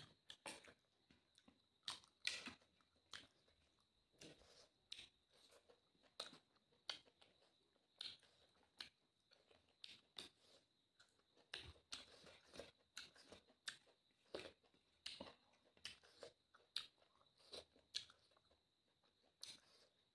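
Close-up eating by hand: chewing and wet mouth smacks in short, irregular clicks as rice and curry are eaten from the fingers.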